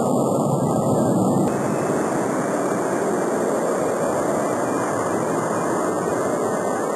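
Jet airliner engines at takeoff power, a steady rushing noise that changes abruptly about a second and a half in.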